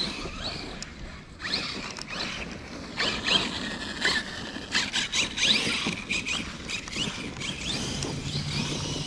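RC monster truck's brushless electric motor whining up in pitch again and again as it accelerates, over scattered knocks and rustling as it drives through grass.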